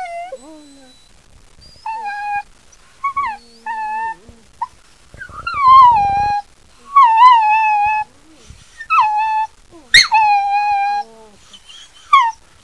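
Long-haired dachshund puppy giving a string of about ten high-pitched whining, howl-like calls, each under a second, many dropping in pitch and then holding: the 'baby talk' of a dog that seems to talk. Heard from an old cassette tape recording.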